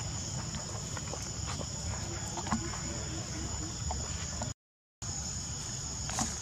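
Steady high-pitched insect drone over a low rumble, with a few faint ticks; the sound cuts out completely for about half a second a little over two-thirds of the way through, then resumes.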